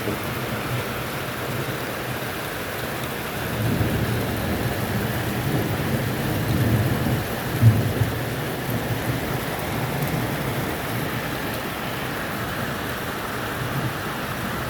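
Steady rain with rolling thunder. A low rumble builds about four seconds in, peaks with a sudden loud clap near the middle, then rumbles on more weakly and fades.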